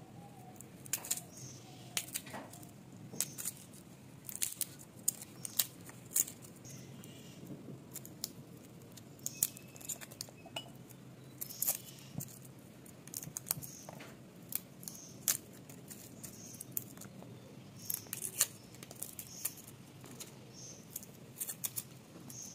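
Garlic cloves being peeled by hand with a small knife: irregular, sharp little clicks of the blade and fingernails on the cloves and their dry papery skins.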